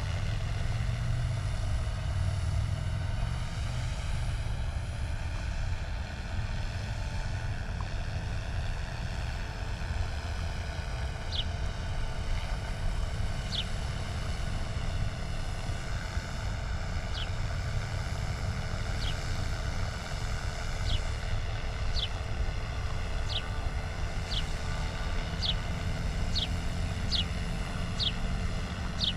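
Small helicopter flying low: a steady low rumble with a whine of several high tones that slowly bend in pitch. From about a third of the way in, short high descending chirps repeat, coming about once a second near the end.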